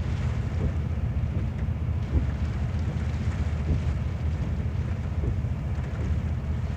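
Strong wind buffeting the microphone in a steady, gusty low rumble, over a fainter even hiss of heavy rain.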